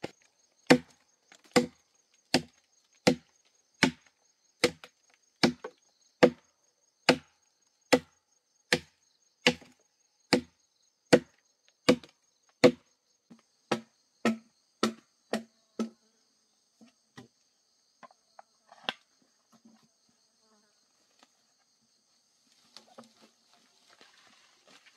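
Wood being chopped with a blade: about twenty sharp knocks at a steady pace of a little over one a second, thinning to a few scattered strokes after about sixteen seconds. Insects keep up a steady high-pitched buzz behind it.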